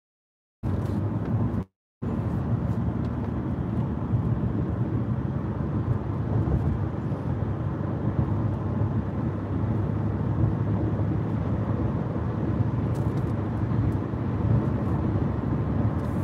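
Steady road noise inside a car's cabin at highway speed: tyre and engine drone with a low rumble. The sound cuts out to complete silence twice in the first two seconds.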